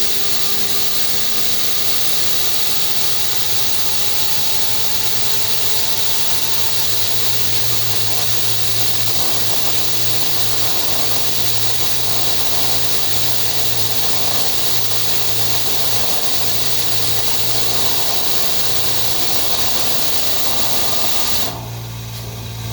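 FH680 machine spindle running steadily: a dense high hiss with several steady whining tones over a low hum, the noise that is suspected to come from a bad spindle bearing after a cable replacement. Near the end the sound drops away suddenly.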